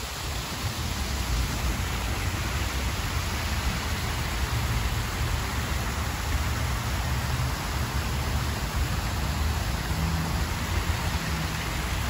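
Steady rushing of water spilling down an artificial rock waterfall, over a low rumble.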